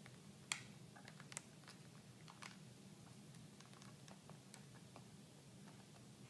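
Faint crackling and small clicks of a thin plastic release liner being slowly peeled off a screen protector, with one sharper click about half a second in.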